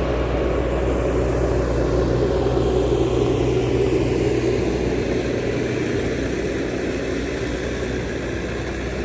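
Heavy machine's engine running steadily, a low even drone with a mid-range rumble that swells slightly around the middle.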